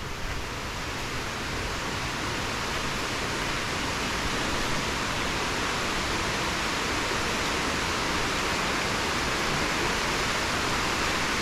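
Steady rushing of a waterfall's falling water, a dense even hiss with no breaks.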